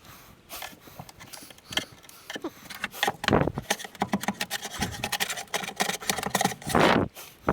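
Irregular clicks, knocks and clatter from handling plywood pieces and tools, with two louder scrapes about three seconds in and near the end.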